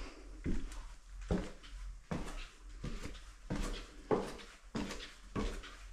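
Faint, evenly spaced footsteps at a walking pace, about three steps every two seconds.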